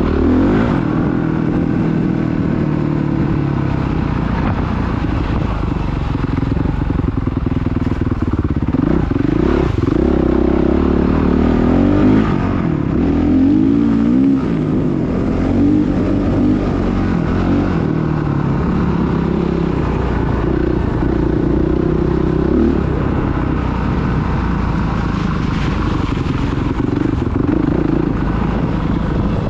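Dirt bike engine running under way, its pitch rising and falling as the throttle is opened and closed.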